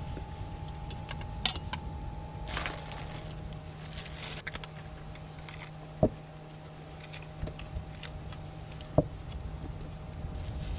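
Scattered small clicks and rustles of food being handled and assembled on a wooden cutting board, with two sharp knocks about three seconds apart in the second half, over a steady low hum.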